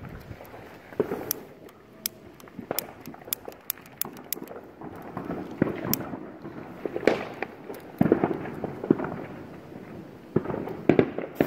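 Fireworks and firecrackers going off: many sharp pops and cracks at irregular intervals over a low rumble, with louder clusters of bangs in the second half.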